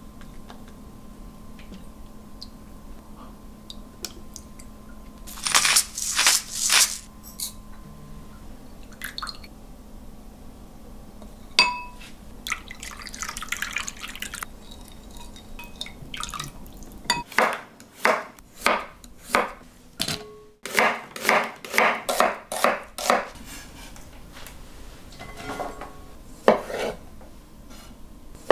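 Kitchen sounds around a glass bowl. A few sharp clicks of a wooden spoon against the glass are followed by one ringing clink of the bowl. Water trickles in, then comes a run of quick knocks and clinks, about two a second, as the sauce is stirred.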